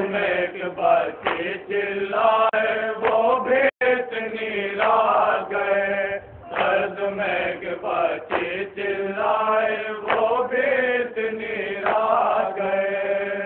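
A man chanting a noha, a Shia mourning lament, in drawn-out melodic phrases with no instruments, over a steady low hum. The sound cuts out for an instant about four seconds in.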